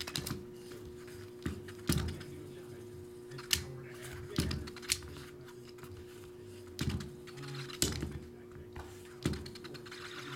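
Irregular sharp clicks and taps of hands handling trading-card packs and a metal folding utility knife on a tabletop, about a strike every second or so. A steady low hum runs underneath.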